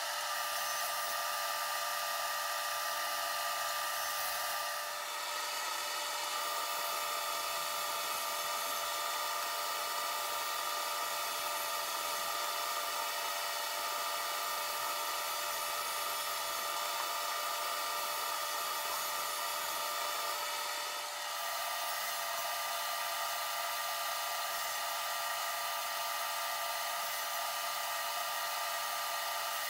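SawStop table saw running with a steady high whine as plastic cutting-board strips and wood are fed through the blade. The sound dips briefly twice.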